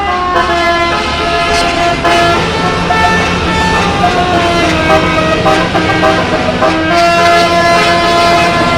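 Basuri telolet horn, a multi-trumpet vehicle horn set, playing a tune in held notes that step from one pitch to the next without a break.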